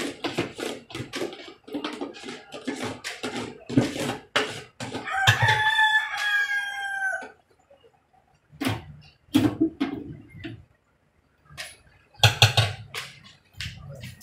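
Metal ghee tins knocking against the rim of a large steel cooking pot as they are emptied into it: a quick run of sharp knocks, then scattered thuds. About five seconds in, one long bird call lasts about two seconds, falling slightly in pitch.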